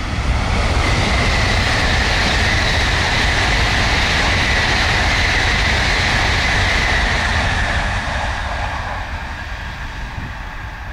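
Tokaido Shinkansen N700-series bullet train passing at high speed: a loud, steady rush of noise with a high whine running through it, dying down from about eight seconds in.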